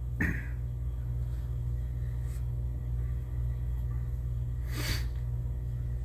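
Steady low hum, with a short breath noise about five seconds in and a small sound just after the start.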